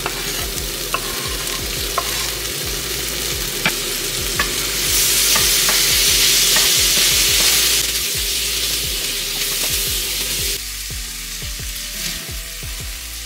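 Boneless chicken thighs frying in a pan, sizzling steadily, with sharp taps and scrapes of a utensil stirring them. The sizzle swells louder about five seconds in for a few seconds, then eases off.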